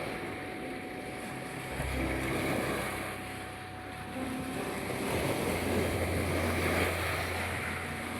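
Black Sea waves washing onto a beach, swelling about two seconds in and again through the second half, under a steady 741 Hz tone and a few soft held music notes.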